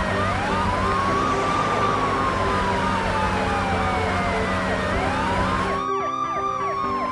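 Several emergency-vehicle sirens sound together: a slow wail that rises and then falls over about four seconds, and a faster yelp that repeats about three times a second. Under them runs a low rumble that cuts out for about a second near the end.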